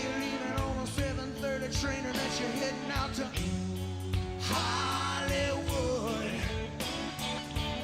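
Background music: a pop-rock song with a sung vocal over held chords and a steady drum beat.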